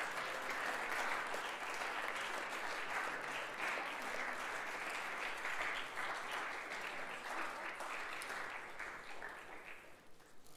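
An audience of schoolboys applauding, a steady round of clapping that tails off near the end.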